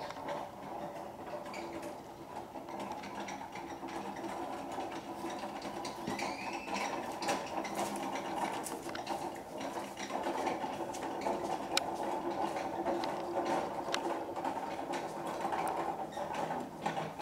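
A steady mechanical hum with many short, irregular clicks and ticks over it, the clicks growing thicker from about six seconds in.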